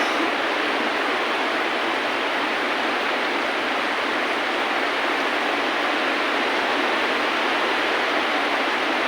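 Steady rain falling, an even, unbroken hiss with no beat or melody.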